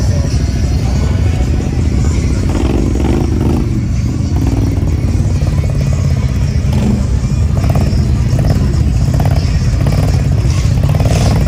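Low, steady rumble of idling vehicle engines from the trucks and ATVs lined up in the mud, with music playing over it.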